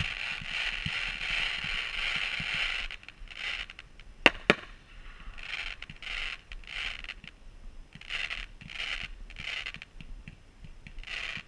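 Ground fountain fireworks hissing and crackling: a steady hiss for the first few seconds, then shorter spells of hiss as new fountains fire. Two sharp pops come close together about four seconds in.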